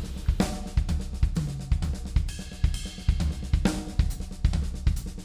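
Drum kit played in a continuous right-left-left-kick sticking: right-hand accents moving around the toms, hi-hat, cymbals and ride, left-hand ghost notes on the snare, and the bass drum closing each group.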